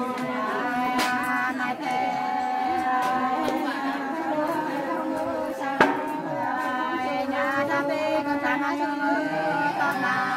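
Women singing a Nùng sli folk song unaccompanied, in long held phrases with bending ornaments. A sharp knock cuts in about six seconds in.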